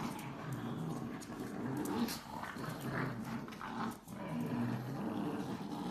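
Several pugs growling low and steadily while chewing on one stuffed toy together, with small clicks and brief higher noises from the chewing.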